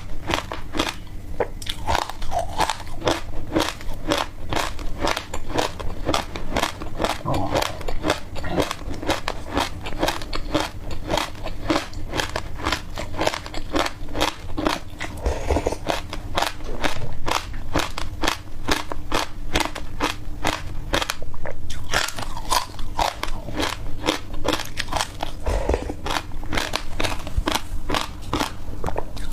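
A person crunching and chewing dry passion fruit seeds close to the microphone: a dense, unbroken run of sharp crunches, several a second.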